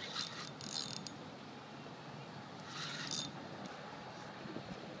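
Fishing reel working against a hooked jack crevalle: two short, high-pitched spells of reel noise, one right at the start and one about three seconds in, over a faint steady hiss.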